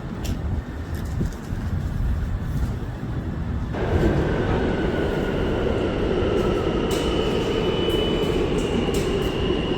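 New York City subway train running: a low rumble, then about four seconds in the train noise rises suddenly, with high wheel-squeal tones that drift slightly lower.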